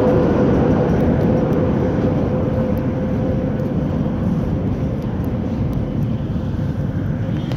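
Moscow metro train running along the platform: a low rumble with a steady whine that fades out, the whole sound slowly dying away as the train moves off.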